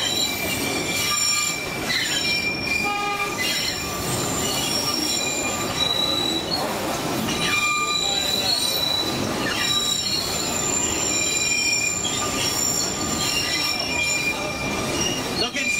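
Narrow-gauge sightseeing train's steel wheels squealing as it rounds a bend: high, thin whistling tones that come and go repeatedly over the steady rumble and rattle of the moving cars.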